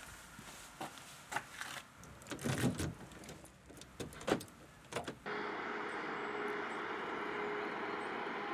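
A few scattered knocks and clicks, then, about five seconds in, a steady vehicle running noise with a faint low hum that starts abruptly.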